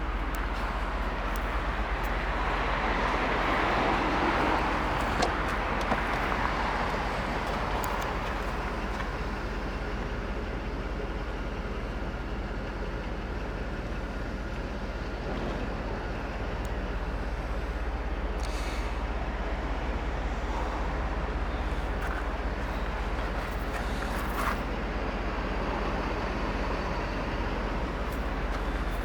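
Mercedes-Benz 500 SL's 5.0-litre V8 engine running steadily, a little louder a few seconds in.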